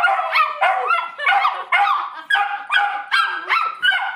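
Dachshund barking excitedly in a rapid string of short, high-pitched barks, about three or four a second.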